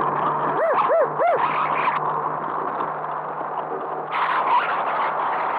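Small motorboat running at speed, its engine humming under a steady rush of wind and water. About a second in, three short horn honks in quick succession. Near the end, the splashing and rushing grows louder.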